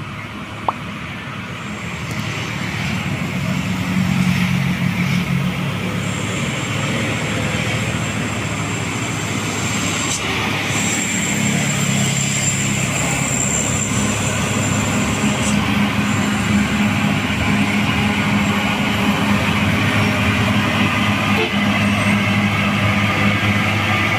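Loaded heavy diesel truck pulling up a steep grade, its engine running steadily under load and growing louder as it approaches and comes alongside.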